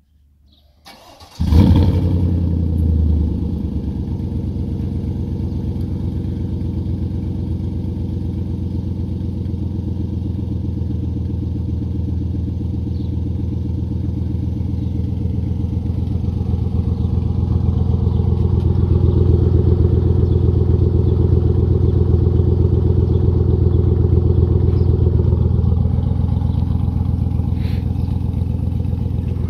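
Chevrolet Silverado 1500 engine cold-starting through a Stainless Works Redline Series cat-back exhaust with dual tips, after sitting all night: a brief crank about a second in, a loud flare as it catches, then a steady idle.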